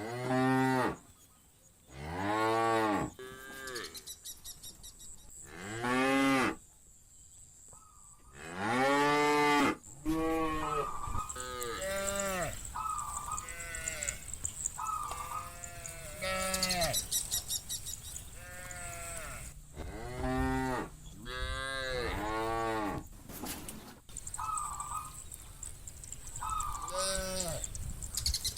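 A herd of cows mooing, one call after another, each moo rising and falling in pitch over about a second and some overlapping. From about ten seconds in, shorter, higher-pitched calls come in between them.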